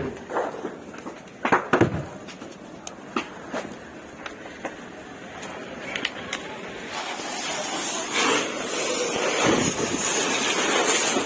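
A few sharp knocks and clatters, then from about seven seconds in a rushing noise that grows steadily louder, like a vehicle running.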